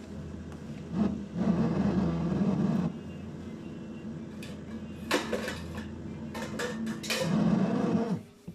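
Fisher & Paykel DishDrawer dishwasher running with a steady low hum, broken by loud squeaky grinding stretches about a second in and again near the end, with clattering strokes in between; this noise comes just before the drain cycle. The sound stops suddenly shortly before the end.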